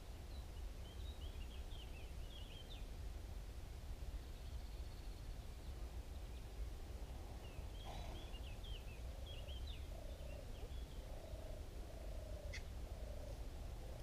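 Wind rumbling on the microphone while small birds chirp in two short runs, near the start and again about 8 seconds in. Just before the second run the horse gives one short, breathy cough.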